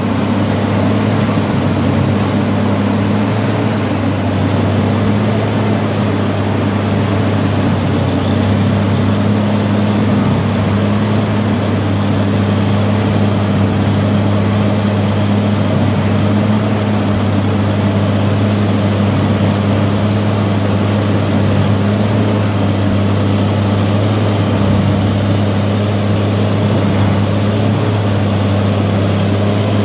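Engine of a railway track tamping machine running steadily, a constant low hum with no change in speed.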